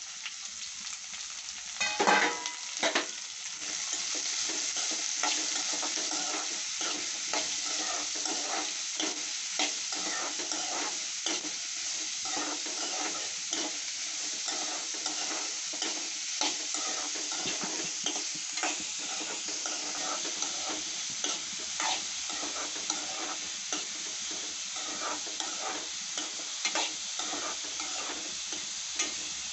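Chopped onions and green chillies frying in hot oil with mustard seeds and curry leaves: a few loud knocks about two seconds in, then a steady sizzle while a spatula stirs, with frequent short scrapes and taps against the pan.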